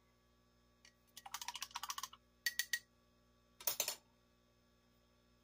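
Spoon stirring heavy cream into coffee in a glass mug: a quick run of light clinks against the glass, then a few separate clinks and a short cluster of clinks a little later.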